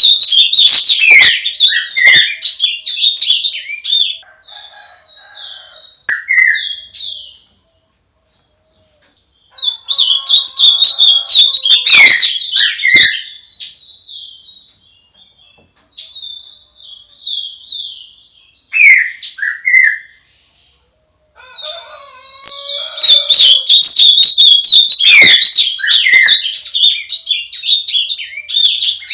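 Songbird singing close by in long, rapid phrases of loud chirps and trills, broken by quieter scattered notes and two short pauses.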